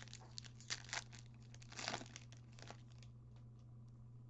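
The foil wrapper of a Donruss basketball retail card pack being torn open and crinkled, in a run of quick crackling bursts over the first three seconds, loudest about two seconds in.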